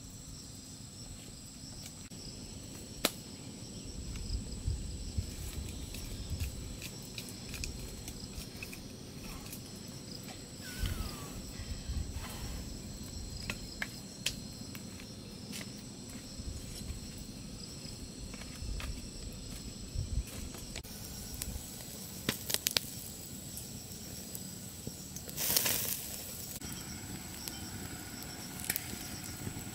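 Forest insects shrilling steadily at a high pitch, with scattered sharp clicks and knocks and a short rush of noise about twenty-five seconds in.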